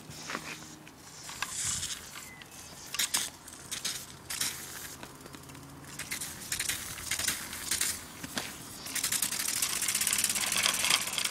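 Small meths-fired model steam engine running: scattered clicks and hissing while it is held and slowed by hand, then from about nine seconds in a fast, even beat of exhaust steam as it runs freely.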